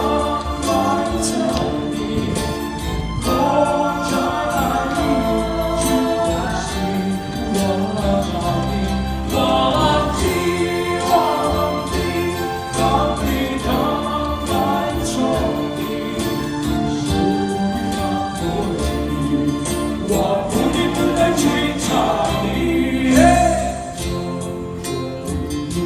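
Background music: a choir singing a melody over a steady beat and bass.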